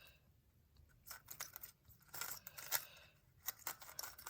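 GAN megaminx being turned in the hands: quiet plastic clicking and swishing of the faces in a few short, irregular flurries.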